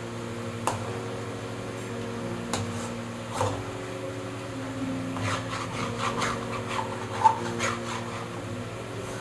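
A spatula scraping and knocking in a cooking pan while a filling is stirred, with a few sharp clacks and a busy run of scraping in the second half. Soft background music plays underneath.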